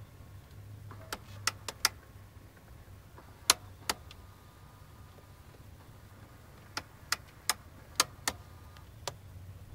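Sharp clicking from behind the dashboard of a Nissan 300ZX, coming in irregular runs of a few clicks with pauses between them, over a steady low hum. The owner suspects it comes from the gears of the vent-control motors in the heater box.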